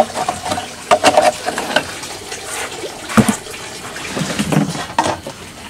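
Water splashing and sloshing as a lú fish trap is handled, with a few irregular knocks, the loudest about three seconds in.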